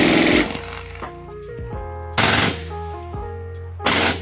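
Replica Stinger, a handheld Browning AN/M2 .30-calibre aircraft machine gun, firing three short bursts of automatic fire about two seconds apart.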